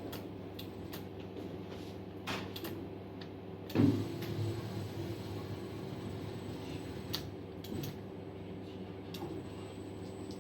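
Steady low hum from the CNC router's drives, with scattered light clicks and one louder knock about four seconds in.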